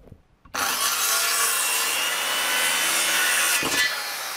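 Circular saw cutting through a pine board with its freshly cleaned and oiled blade: the loud cut starts abruptly about half a second in and lasts about three seconds. Then, with the cut through, the motor spins down with a slowly falling whine.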